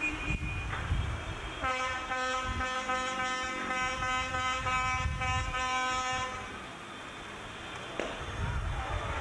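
A car horn held for about five seconds as one steady note. A shorter horn of a different pitch ends just before it, in the first second.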